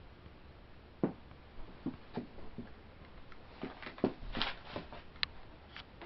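A Seagull Lighting Main Street ceiling fan running on wood blades, with a steady low hum under it. About eight irregular light clicks and taps fall over it, with no even beat.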